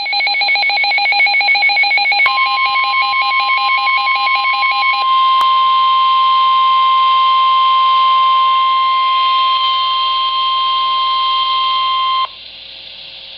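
NOAA Weather Radio emergency alert tones. For about the first five seconds there is a rapid warbling data buzz, the SAME digital header. From about two seconds in it is joined by the steady high Warning Alarm Tone, which holds until it cuts off suddenly about a second before the end, leaving faint radio hiss.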